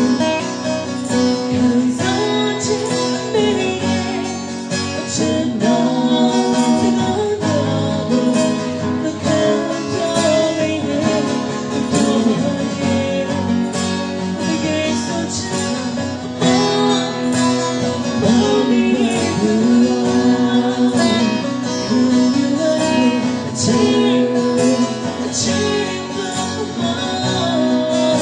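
A woman singing a Burmese-language song into a microphone over strummed acoustic guitar accompaniment.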